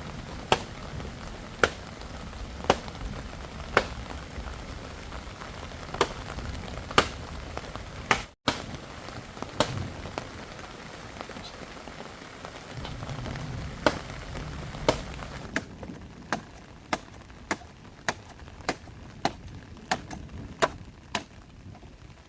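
Steady rain with sharp knocks of a tool striking wood, about one a second, coming faster over the last several seconds.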